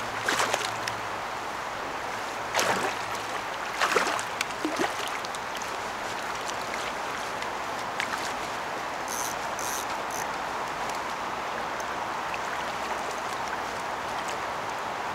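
River water running steadily at the bank. Three loud splashes in the first five seconds as a large chinook salmon thrashes in the shallow water at the edge.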